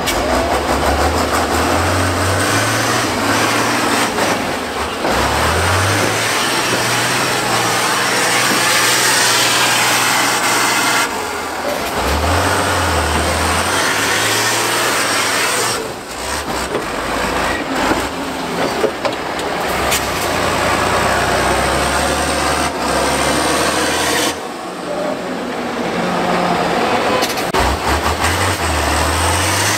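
Diesel engine of an eight-wheeled trial truck revving hard under load as it climbs through deep mud, easing off and then picking up again several times.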